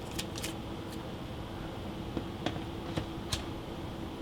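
A few light clicks and taps of small objects being handled, over a steady hum with one constant tone.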